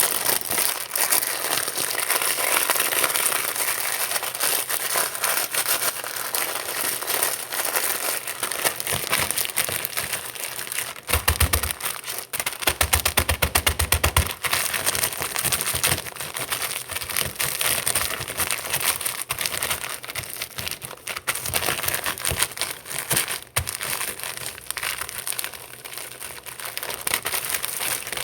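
Crunchy Cheetos being handled and crushed, a dense, continuous crinkling and crackling, with a few dull thumps about halfway through.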